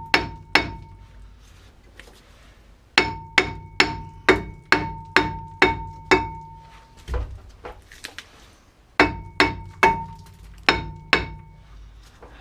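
Hammer blows on a worn, stuck front brake disc of a Citroen C4 Grand Picasso, tapping it round to free it from the hub. The strikes come in runs of several, about two or three a second, with pauses between, and each blow leaves the metal disc ringing briefly.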